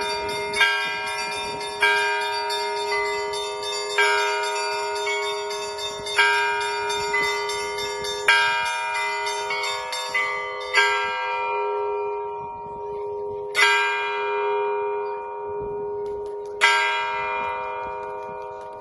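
Orthodox church bells on a portable belfry, rung with a strong stroke about every two seconds over a continuous ringing hum. The strokes slow to about three seconds apart near the end as the ringing fades.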